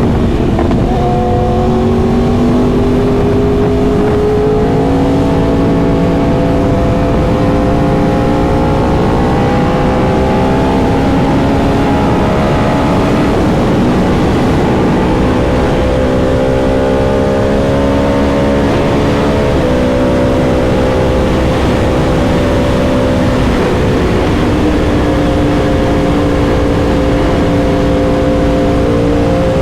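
2021 Yamaha R1M's crossplane inline-four engine running under way, its pitch climbing slowly and dropping with upshifts twice in the later part.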